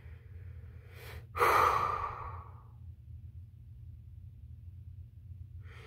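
A tearful woman's breathing: a quick breath in about a second in, then one loud sigh that fades over about a second and a half, and another breath near the end.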